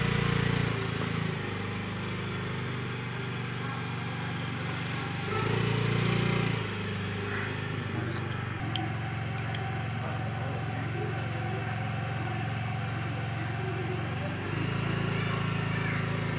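Small motor scooter engine idling steadily, the throttle opened briefly about five seconds in and opened again near the end.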